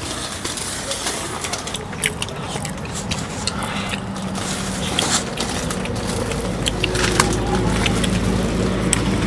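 Wooden chopsticks clicking and scraping against plastic food containers during a meal, scattered light clicks. Under them a steady low rumble grows louder about halfway through.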